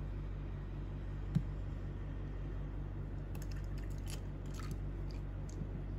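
Ice cubes in a tall glass crackling and clinking in a rapid cluster of sharp clicks as tea is poured over them from a plastic jug, after a single knock about a second in. A steady low hum sits underneath.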